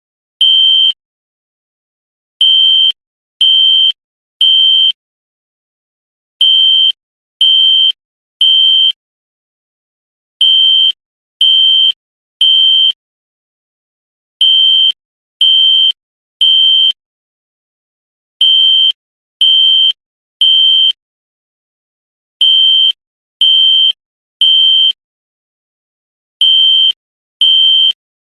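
System Sensor SpectrAlert Classic fire alarm horn sounding the Temporal-3 evacuation signal: groups of three short, high-pitched horn blasts, each group followed by a longer pause, repeating about every four seconds.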